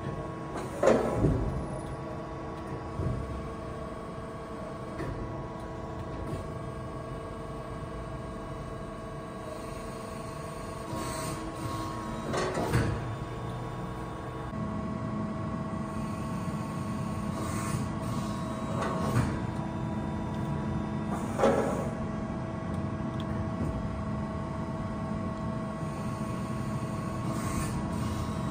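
Trumpf TruBend 3180 CNC press brake powered up and running: its hydraulic drive gives a steady hum with several constant tones, which shift about halfway through. A handful of short clunks and sliding knocks come as its axes move, the loudest about a second in.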